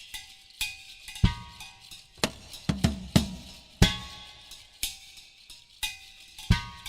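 Percussion-led music: sharp drum strikes in an uneven rhythm, several to the second at times, with a few faint held higher tones between them.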